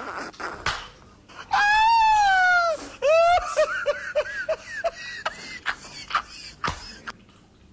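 A person's high, drawn-out vocal wail lasting about a second, then a quick run of short, falling vocal notes like laughter. Short mouth clicks from someone chewing food come before and after.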